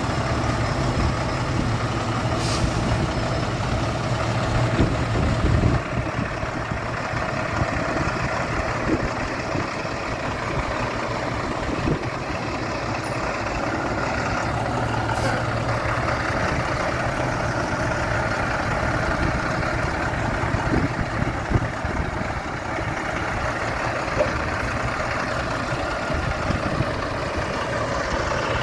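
Diesel engine of a 2006 International 4300 flatbed truck running steadily, with a few faint clicks.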